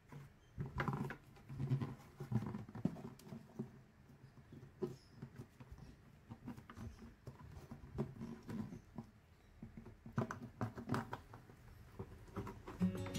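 Hands working a plastic paint bucket and the plastic tap fitting set through its wall: irregular light knocks, scrapes and clicks of plastic being handled, with a few sharper clicks toward the end.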